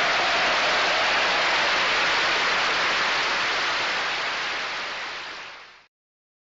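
Studio audience applauding, a steady dense clapping that fades out from about four seconds in and cuts off abruptly near the end.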